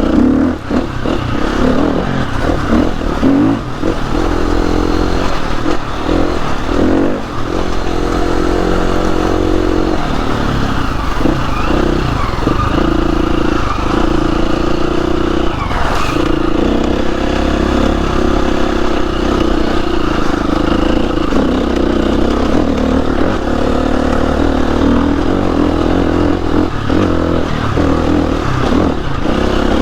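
Trail motorcycle engine running under way, its pitch rising and falling as the throttle is worked, with one sharp click about sixteen seconds in.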